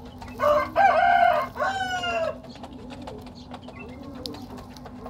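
A rooster crows once, loud, a held note that falls away at the end. Pigeons coo faintly after it.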